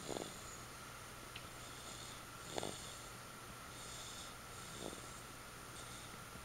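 Snoring in sleep: three short, soft snores roughly two and a half seconds apart, over a faint steady hum.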